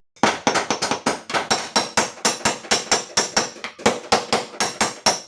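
A hammer rapidly beating out a badly dented car door panel, with about five sharp metal blows a second and a brief pause about two-thirds of the way through.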